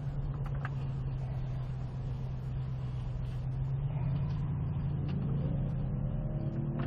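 Ford Raptor pickup's engine running low and steady as the truck creeps forward, heard from inside the cab. About five seconds in, a rising engine note joins it as the truck ahead accelerates hard away from the start.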